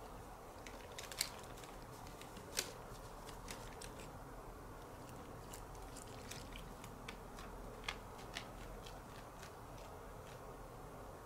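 Thin plastic bag crinkling in scattered, short crackles as a cat noses into and pushes against it, with a few sharper crackles standing out.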